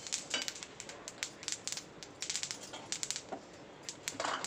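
Sesame seeds popping and crackling in a hot kadai as they finish roasting, many quick irregular pops, mixed with a wooden spatula stirring and scraping through them. A louder rustle comes near the end.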